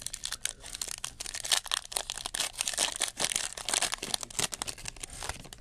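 Foil wrapper of a Topps Stadium Club Chrome trading-card pack crinkling and tearing as it is ripped open by hand, a dense run of sharp crackles.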